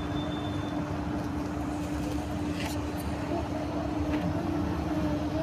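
Steady background hum with a constant low drone, and a couple of faint clicks about two and a half and three seconds in.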